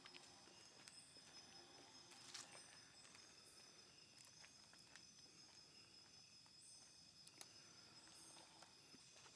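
Faint, steady high-pitched chorus of night insects such as crickets, with a couple of soft clicks.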